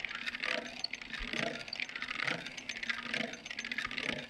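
Hand-cranked timber-framing boring machine driving an auger bit down through timber to bore a peg hole: dense clicking of the gearing and bit cutting into the wood, swelling and fading about once a second with the turns of the crank.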